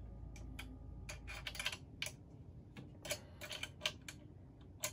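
Small, irregular metallic clicks and ticks of an Allen wrench working the bolts of an Ender 3 V2's X-axis gantry wheels as they are tightened, sparse at first and then coming in quick clusters.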